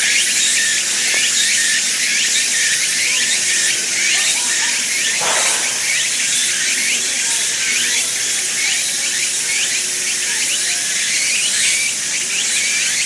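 Forest-park ambience: a steady, high-pitched buzzing chorus with short calls repeating about two or three times a second, and one brief sweep about five seconds in.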